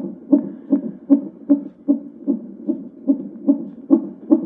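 White noise machine's speaker playing one of its built-in sounds: a low, even pulsing beat of about two and a half pulses a second, which strikes the listener as hypnotic.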